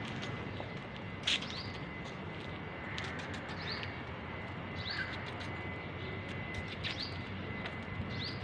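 Small birds chirping: short, high, hooked chirps every second or two, the loudest about a second in, over a steady outdoor background hiss with a faint steady high tone.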